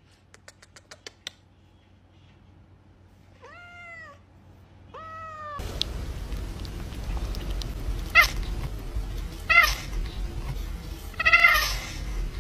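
A quick run of about six kissing smacks on a hairless sphynx kitten, then the kitten mews twice, each call falling in pitch. Then, over a steady background noise, a cat gives three short, loud meows about a second and a half apart.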